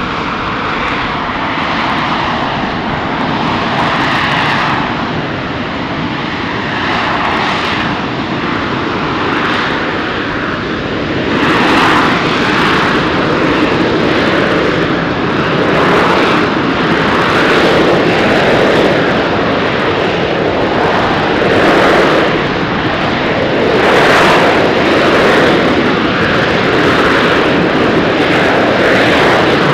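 AV-8B Harrier II's Rolls-Royce Pegasus vectored-thrust turbofan holding the jet in a hover: loud, steady jet noise that gets louder about twelve seconds in, then swells and eases every couple of seconds.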